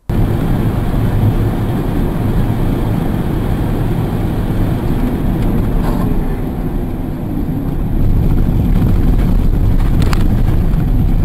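Loud, steady road and wind noise of a car travelling at highway speed, mostly a deep rumble, picked up by a dashcam. There is a faint knock about six seconds in and a faint click about ten seconds in.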